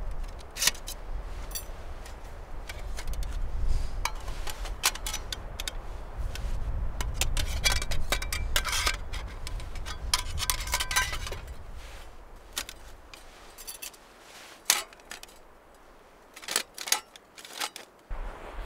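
Firebox folding metal camp stove being unfolded and put together by hand: its hinged panels clink, click and scrape, with a few brief metallic rings in the middle.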